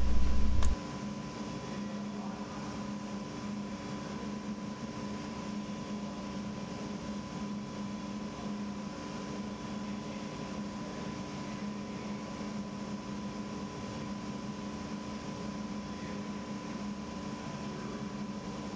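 Steady machine hum with a constant high whine near 1 kHz and lower hum tones under it, the running background noise of the thruster test facility. A loud low rumble cuts off sharply just under a second in.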